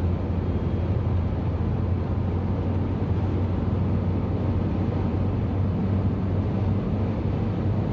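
Inside the cabin of a Lada Granta with a manual gearbox, driving in fifth gear at highway speed near 3000 rpm: a steady low engine drone mixed with road and tyre noise. No gearbox whine can be heard, as the driver himself reports on fifth.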